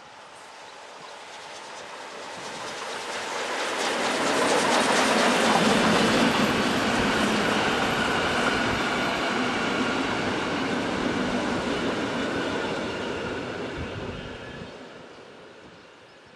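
Class 52 steam locomotive and its passenger coaches passing at speed. The sound builds over about five seconds as the train approaches, stays loud while the coaches roll by with wheels clattering over the track, and fades over the last couple of seconds as the train goes away.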